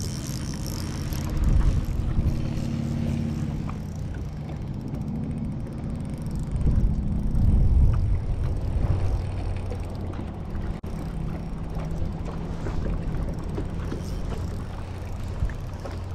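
Wind rumbling and gusting on the microphone over a low motor hum, whose pitch shifts slightly now and then.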